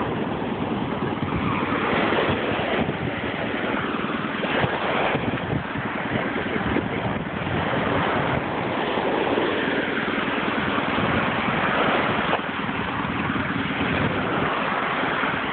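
Steady wash of surf and wind buffeting the microphone, with a farm tractor's engine running underneath as it strains to pull its trailer out of the wet sand.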